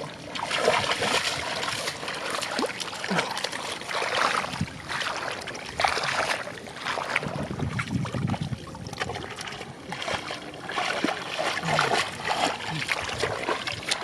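Irregular splashing and sloshing in shallow muddy water, as when fish are being groped for by hand in mud.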